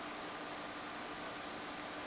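Steady hiss of background noise with a faint steady hum underneath; nothing else happens.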